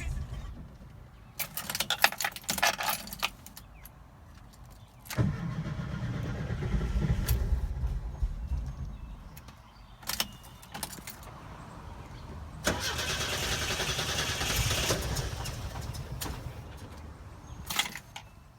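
VW Bus engine cranking on the starter without catching, in two tries of a few seconds each, with clicks and rattles before the first. This is a no-start condition.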